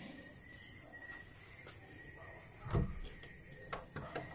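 Crickets chirring steadily throughout, with a knock about three seconds in and a few short metallic clicks near the end as a hand tries the knob of a broken classroom door.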